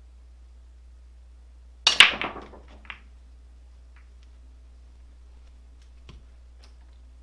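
Pool cue strike and billiard balls clacking: a sharp hit, then a louder clack and a quick run of fading ball-on-ball clicks. A few lighter clicks of balls follow over the next few seconds.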